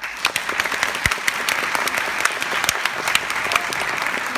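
Theatre audience applauding, breaking out all at once as the music ends and keeping up steadily.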